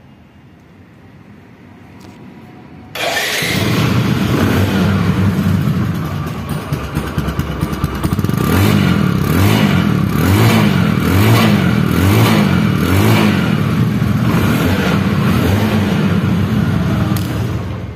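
A Bajaj Discover 100's single-cylinder four-stroke engine starts abruptly about three seconds in and idles. From about halfway it is revved up and down again and again in short blips. The seller calls it showroom-condition sound.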